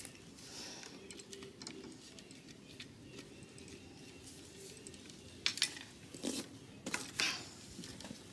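Faint handling sounds of a rabbit's hide being worked and pulled off the carcass by gloved hands, with a few short, sharp clicks in the second half.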